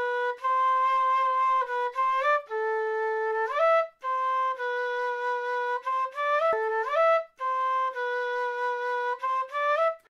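South American flute playing a slow melody of long held notes in phrases. Each phrase ends in a quick rising run of notes, with brief breaks for breath between phrases.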